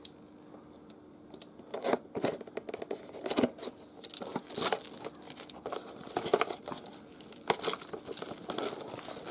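Plastic shrink wrap being slit with a knife and torn and crinkled off a cardboard game box, in intermittent bursts of rustling with a few sharp taps.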